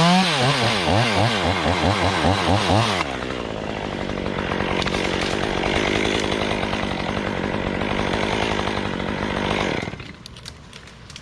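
Chainsaw revved in quick throttle blips, then held at a steady high speed under load as it cuts through the poplar wood for about seven seconds. Near the end it drops off sharply, leaving only faint ticks.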